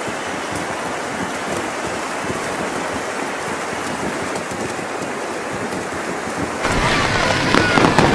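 A large audience applauding steadily. About seven seconds in, fireworks take over, louder, with sharp crackling bangs.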